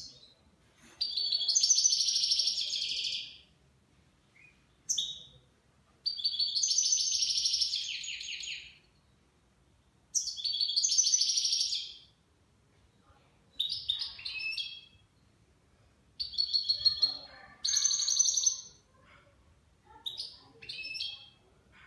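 European goldfinch singing: phrases of rapid twittering trills, the first three each about two to three seconds long, the later ones shorter and more broken, with short pauses between. It is a nine-month-old bird singing in what its keeper calls the Levantine style.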